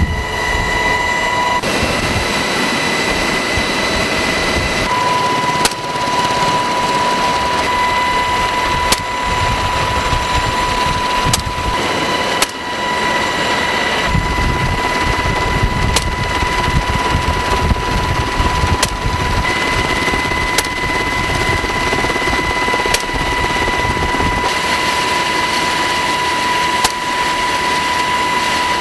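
Helicopter in flight: a steady turbine whine over dense rotor and engine noise, with brief sharp clicks every few seconds.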